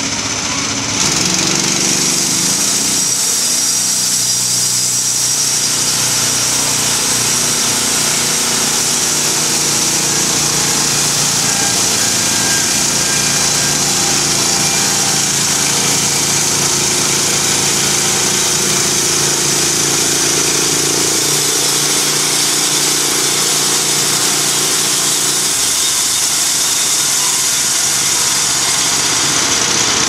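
Logmaster LM1 portable bandsaw mill running under load, its small engine droning steadily while the band blade cuts lengthwise through a pine log with a continuous hiss. The sound grows louder and hissier about a second in.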